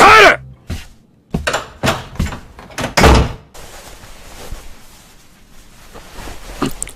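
Cartoon fight sound effects: a loud cry with a falling pitch, then a quick run of thuds and bangs, about seven in three seconds, as a scuffle hits the furniture and floor. Quieter noise and a few small knocks follow.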